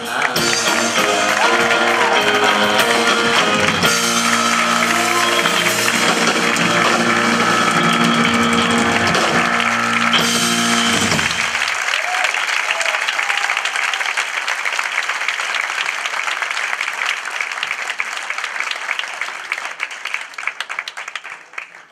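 Live rock band with electric guitars, drum kit and keyboard playing the last bars of a song, stopping about eleven seconds in. Audience applause follows and fades away near the end.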